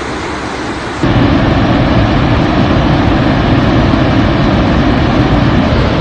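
Steady roar of floodwater rushing through the open spillway gates of the Salal Dam on the swollen Chenab River. It gets louder and deeper about a second in.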